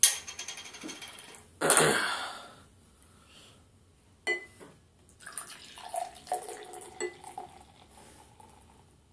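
A beer bottle being opened and poured: a sharp knock and a clatter from the cap and opener in the first two seconds, then beer glugging and gurgling from the bottle into a pint glass, fading out near the end.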